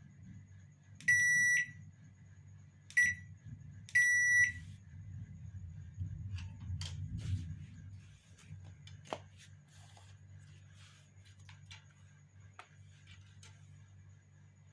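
Three electronic beeps at one pitch, the first and last about half a second long and the middle one short, typical of a washing machine's control panel answering button presses once it has power again. Light clicks and knocks follow over a low hum.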